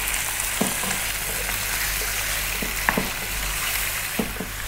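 Bone-in lamb pieces sizzling in hot coconut oil in a non-stick wok, browning on a slightly above medium heat. A wooden spatula turns the meat, knocking against the pan a few times over the steady hiss.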